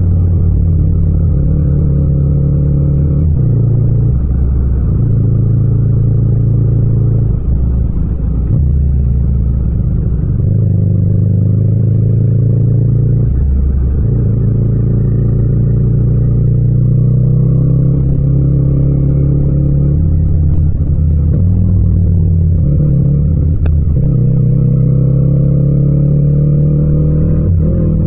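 Yamaha MT-07's parallel-twin engine running loud in low gears, its pitch stepping and gliding up and down as the throttle opens and closes and the gears change, with a few brief dips and a steady rise near the end.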